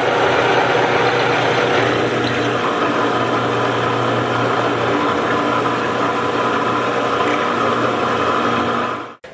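Drill press running with a 3/16-inch bit drilling through steel water pipe: a steady motor hum under a loud, even grinding hiss of the bit cutting the metal, stopping abruptly near the end.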